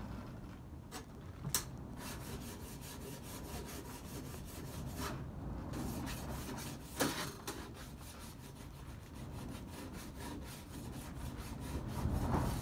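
Hand file scraping along the metal dovetail of a quick-change sled runner rail in quick, even strokes, with a short pause about halfway: smoothing out rough, burred sections of the dovetail.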